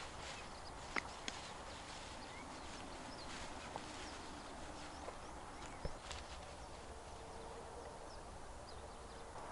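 Faint outdoor background hiss with a few scattered sharp clicks and taps, the loudest about a second in and again around six seconds in.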